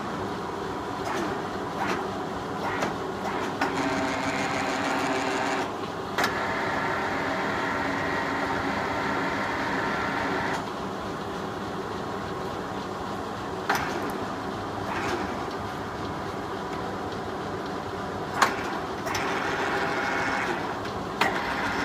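1986 Poreba heavy engine lathe running, its gearing giving a steady whine with several held tones, while the power feeds are run. It gets louder from about four to ten seconds in and again near the end, and sharp clicks and clunks of the control levers come several times.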